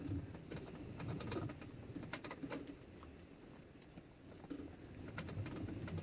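Windstorm gusts buffeting a motorhome, heard from inside as a low rumble with faint low moans, with scattered soft clicks and rustles.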